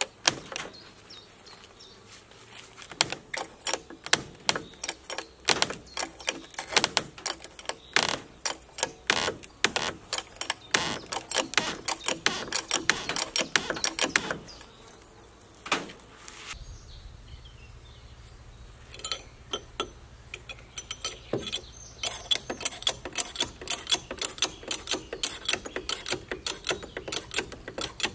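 Ratchet of a lifting device clicking rapidly, several clicks a second, as it is worked to raise the log wall. There is a short lull a little past halfway.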